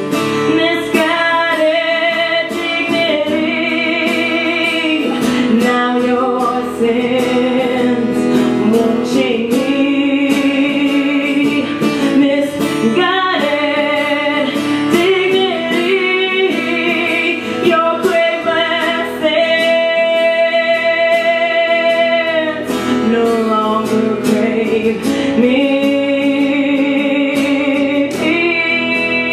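Live music: a singer holding long, wavering notes over guitar accompaniment, with no clear words.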